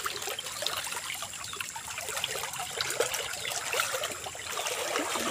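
Creek water trickling and flowing, with many small splashes.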